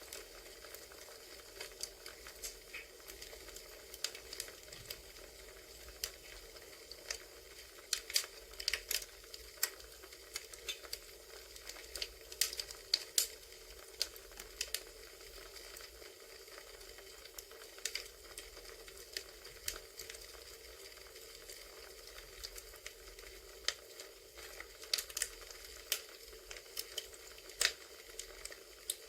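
A wood fire crackling, with irregular sharp pops and snaps over a steady hiss.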